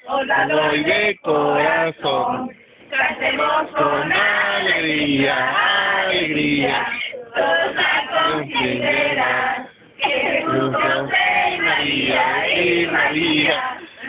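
A group of men and women singing together, a Christmas posada song, in sung phrases with short pauses between them.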